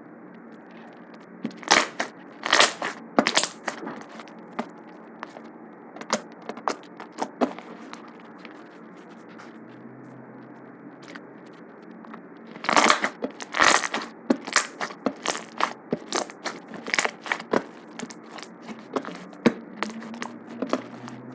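Fluffy slime being squished and stretched by hand, giving sharp popping and crackling clicks: a few loud pops about two seconds in, then a longer run of pops from about halfway to near the end.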